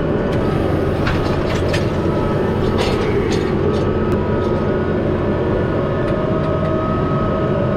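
Tractor engine running steadily under a reversible plough's hydraulic flip, with a steady whine and a few light clicks in the first few seconds.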